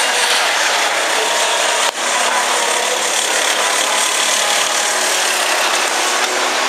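Go-kart engines buzzing steadily as karts lap the track, a dense raspy drone with a brief break about two seconds in.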